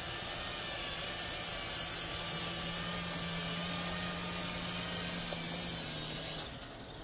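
KY202 Black Bee mini RC helicopter's electric rotor motors whining steadily in flight, the pitch wavering slightly. It lands and the motors cut off sharply about six seconds in.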